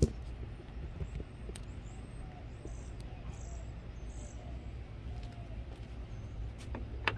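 Outdoor ambience: a steady low rumble with a few faint, short, high chirps a few seconds in. A sharp handling click comes right at the start, and more clicks come near the end.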